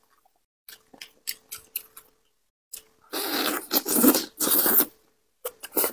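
Close-miked eating sounds of sauced fish: a few short wet crackles as gloved hands tear a piece apart, then about two seconds of loud wet sucking and chewing as the piece is bitten into, with a couple of sharp wet smacks near the end.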